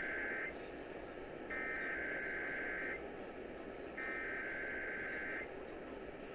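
Emergency Alert System SAME header over broadcast radio: bursts of harsh, high-pitched digital data tones. The first burst ends about half a second in, then two more follow, each about a second and a half long with a second's gap, over a steady radio hiss. These are the data bursts that open an EAS message, here a coordinated monthly test.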